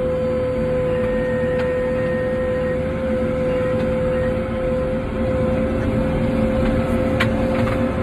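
Backhoe loader's diesel engine running steadily as the machine drives along, heard from inside the cab, with a steady whine over the low rumble.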